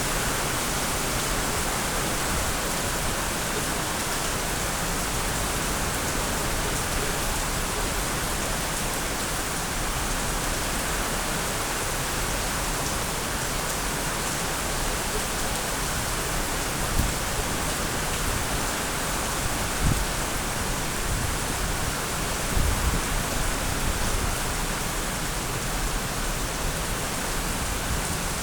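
Steady heavy rainfall, an even hiss throughout. A few short low thumps come in the second half.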